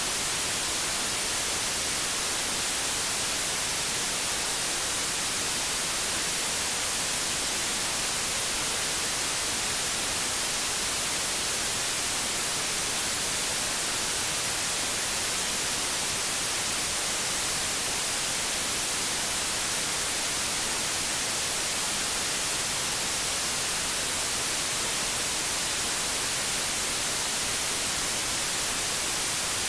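White noise: a steady, even hiss that is brightest in the high frequencies and does not change.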